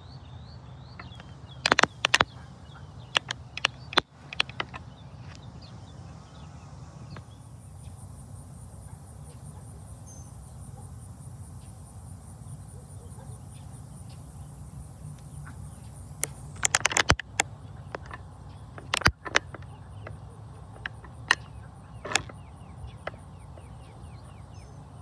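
Outdoor ambience: a steady, high-pitched, finely pulsing insect trill that starts about seven seconds in, over a low steady hum, with scattered sharp clicks and knocks, several of them close together about two-thirds of the way through.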